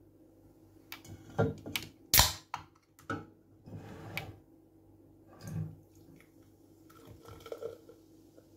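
A beer can being handled and opened: clicks and knocks, then a sharp pop and hiss of the tab about two seconds in, the loudest sound. Near the end beer pours into a glass mug.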